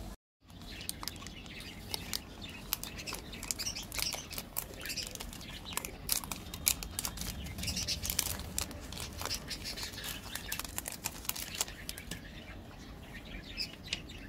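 Cadbury Dairy Milk bar's wrapper and foil crinkling and crackling as they are peeled off by hand, with a brief gap just after the start.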